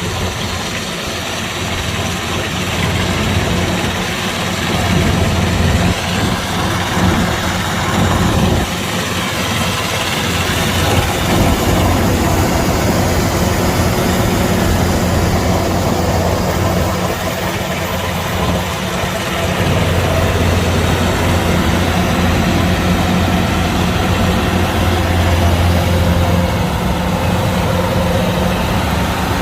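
Kubota DC-105X combine harvester running steadily at work, its diesel engine humming low under a broad mechanical noise from the machinery.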